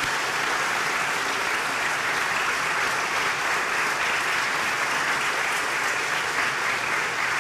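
Audience applauding: a steady round of clapping at the close of a speech.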